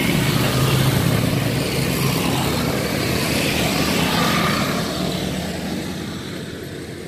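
A motor vehicle's engine running with a steady low hum, which fades away from about five seconds in as the vehicle draws off.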